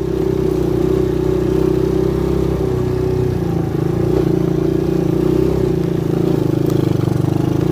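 ATV engine running steadily while riding, its note shifting slightly about three seconds in.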